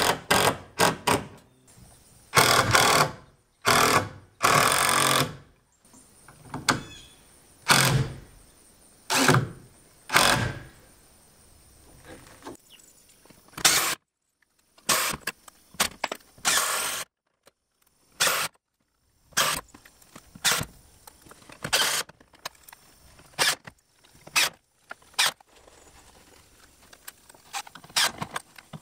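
Cordless impact driver running in a long series of short bursts, driving structural screws through a metal truss tie into a wooden roof truss and wall plate.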